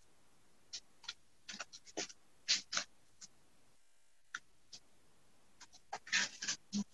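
Folded paper rustling and crinkling as it is handled in the hands, in faint, scattered short rustles and clicks, with a denser flurry near the end.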